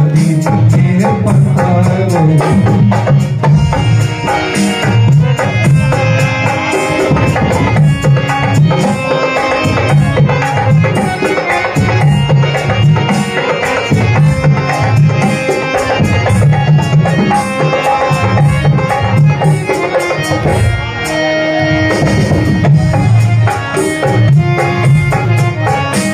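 Harmonium playing an instrumental passage of held and moving reed chords, over a steady drum rhythm.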